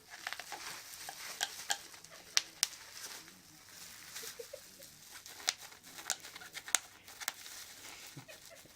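Bubble wrap crinkling, with scattered sharp pops at irregular intervals as the bubbles burst, the loudest a pair about two and a half seconds in.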